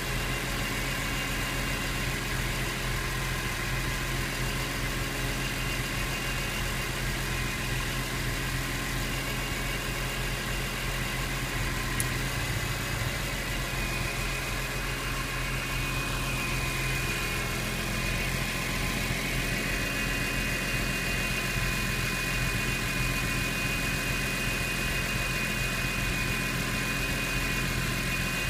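BMW E46 M3's S54 inline-six idling steadily, breathing through a Karbonius CSL carbon airbox, with the click sound that the owner is recording. One sharp click stands out about twelve seconds in, and a high steady whine grows louder about halfway through.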